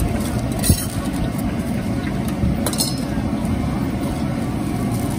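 Metal tongs clinking against a stainless-steel wire draining rack as fried fritters are picked off, two sharp clinks about a second in and near three seconds in, over steady background noise.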